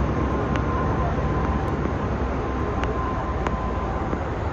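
Steady rushing noise of heavy rain and fast-flowing floodwater filling a street, with a few faint ticks.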